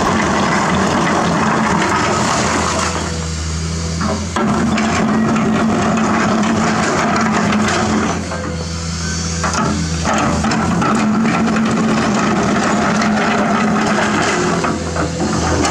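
Komatsu PC210 excavator's diesel engine running steadily under load while its steel bucket scrapes and pushes through a pile of large rocks, with stones grinding and clattering. Twice the rock noise briefly drops away, leaving the engine on its own.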